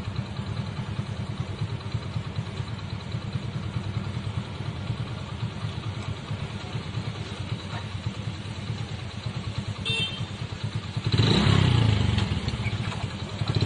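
Motorcycle engines idling, a steady low pulsing rumble, which turns louder and rougher about eleven seconds in.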